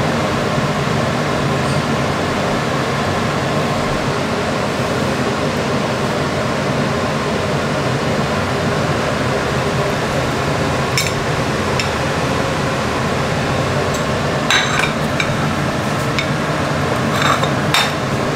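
A steady rushing noise, with several sharp clinks of kitchen utensils against metal or dishes in the second half.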